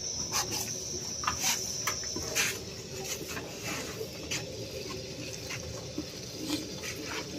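Butter sizzling and crackling in a hot clay handi as cumin seeds and asafoetida fry in it for a tadka, with irregular sharp pops throughout. The hiss is stronger for the first couple of seconds.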